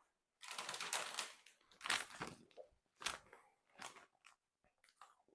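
Crisp crackling and crunching from a bag of popcorn, in a run of short bursts, the loudest about two seconds in, then smaller ones.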